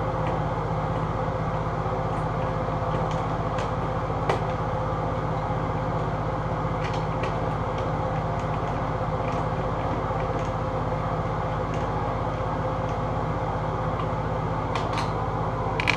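Steady mechanical drone with a constant low hum, and a few faint clicks and a light knock about four seconds in.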